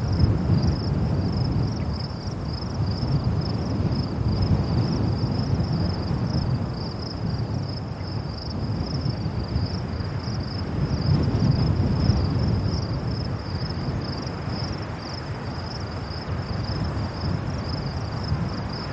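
Strong wind blowing in gusts, mostly a low rushing buffet on the microphone that swells and eases every few seconds. A steady, high, pulsing insect trill runs under it.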